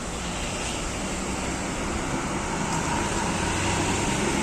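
Bus engine and road noise: a steady rumble growing slowly louder.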